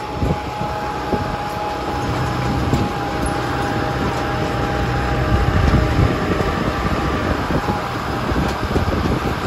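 Tractor engine running steadily as it tows a hay wagon, with the wagon rumbling and rattling over the ground; a little louder about halfway through.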